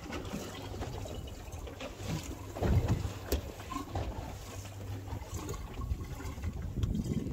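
Wind noise on the microphone and water sloshing against a boat's hull, with a few sharp knocks about three seconds in.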